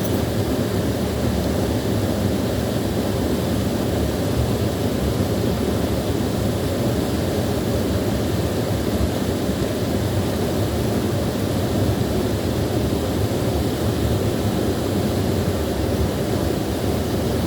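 Small waterfall rushing steadily, a constant deep wash of falling water.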